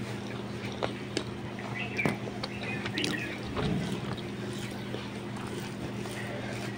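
Quiet room tone with a steady low hum, and a few soft clicks and taps scattered through it as rice is mixed by hand on a plate.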